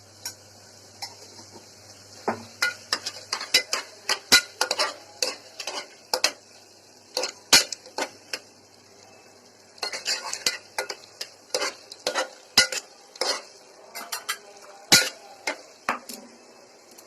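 Metal spoon stirring a thick mixture in a pressure-cooker pot, with irregular clinks and scrapes against the metal. It starts about two seconds in, pauses briefly midway and stops shortly before the end.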